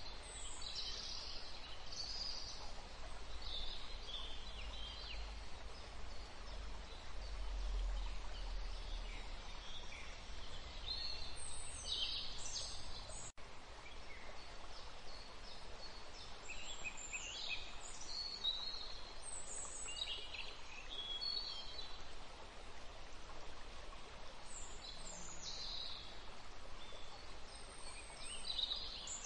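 Birds chirping now and then over a steady background hiss, with a brief instant where the sound cuts out about thirteen seconds in.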